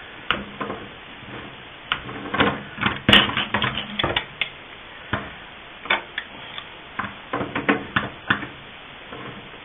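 Irregular clicks and knocks of hard faucet parts and a hand tool as the new valve is tightened back into a Delta sink faucet, clustered in two busy spells.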